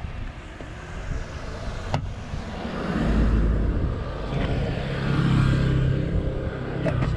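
A motor vehicle's engine running, swelling about three seconds in into a steady low hum, with a sharp click about two seconds in.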